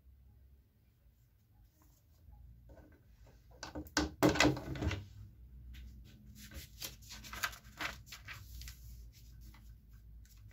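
Handling noises: a plastic-bodied electric nailer/stapler set down on a board with a loud clatter of knocks about four seconds in, followed by a run of light clicks and rustling as its cord and a paper instruction sheet are moved about.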